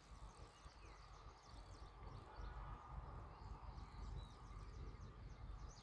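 Faint outdoor background: a low rumble with faint, scattered high bird chirps.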